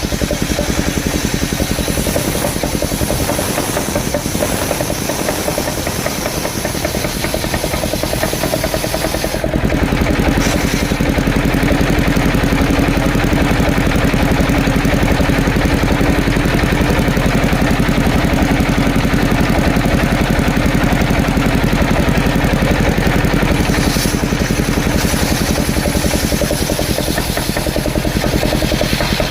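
Engine-driven mobile circular sawmill running steadily while sawing coconut-palm logs. About a third of the way in its sound turns deeper and heavier, and it lightens again near the end.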